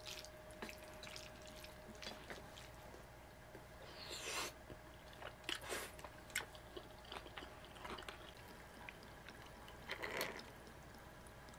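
Quiet eating sounds: chopsticks working jjajang noodles in a stainless-steel bowl and chewing, with soft clicks now and then. A short pour of liquor into an ice-filled glass comes about ten seconds in.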